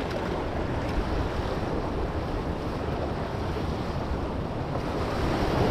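Ocean surf washing against jetty rocks as a steady rushing wash, with wind buffeting the microphone.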